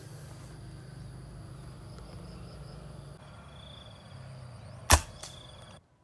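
A single sharp shot from a PCP air rifle about five seconds in, with a fainter click a moment after it, over a steady low hum.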